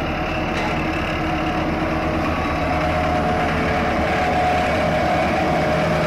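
A recorded truck-like engine idling sound effect accompanying a toy loader. It runs steadily and cuts in and out abruptly.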